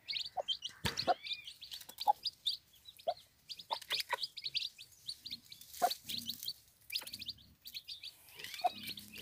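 Chicks peeping rapidly in short high chirps, several a second, with a hen's low clucks now and then.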